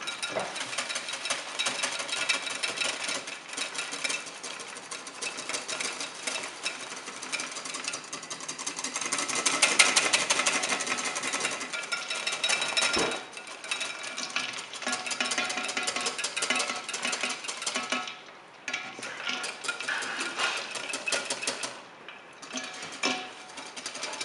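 Wire whisk beating cream by hand in a ceramic bowl chilled over ice water: a fast, steady clatter of the wires against the bowl, whipping air into the cream. It stops for a moment about halfway and twice more near the end.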